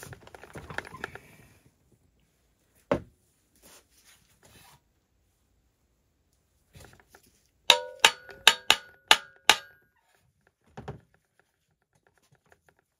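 A brass mallet tapping on a crankcase splitter bolted to a Husqvarna 395 XP chainsaw crankcase, coaxing the case halves apart: one knock about 3 seconds in, then a quick run of about six metallic taps, each with a short ring.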